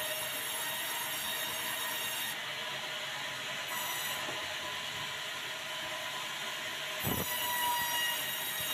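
Sawmill band saw running with a steady high whine as a white meranti cant is fed through it on the roller table; the highest hiss drops away for a few seconds mid-cut. A single low thump about seven seconds in.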